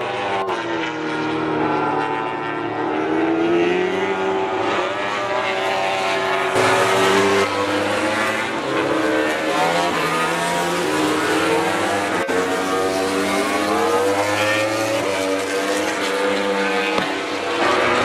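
MotoGP racing motorcycle engines, a Yamaha YZR-M1 crossplane inline-four among them, revving hard on track. The engine note climbs and drops again and again through gear changes, with an abrupt change in the sound about six and a half seconds in.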